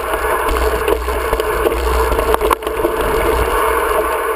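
Mountain bike riding a rough dirt singletrack: steady tyre and trail noise with scattered knocks and rattles from the bike, under a constant low rumble of wind on the camera microphone.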